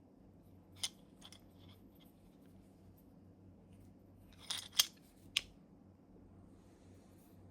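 Handling noise: a few sharp clicks and taps, as of small hard parts being moved, set down or knocked together. One click comes about a second in, several fainter ones follow, and a louder group of clicks comes around four and a half to five and a half seconds in, over a low steady hum.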